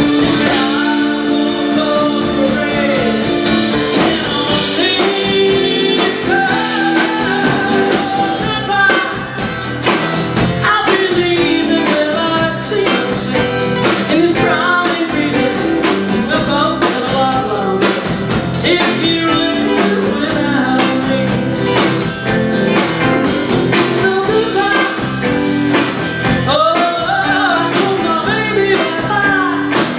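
Live pop-rock band playing with a singer, guitar audible.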